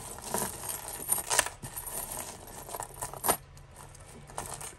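Costume jewellery pieces clinking and jangling as they are handled and dropped: a run of small metallic clicks and jingles, with sharper clinks about a second in and again about three seconds in.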